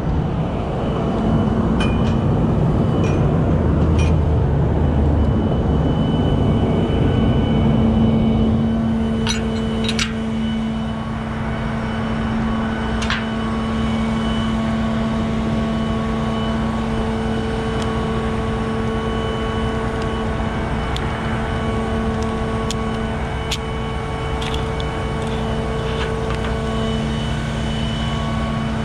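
Heavy diesel equipment running steadily with a constant hum, its rumble easing about a third of the way through, and a few sharp metallic clicks and clinks.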